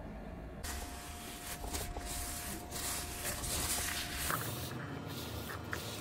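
Paper tissue rubbed across a tablecloth and a tablet case to wipe up spilled water: a dry rustling hiss in uneven strokes, starting about half a second in.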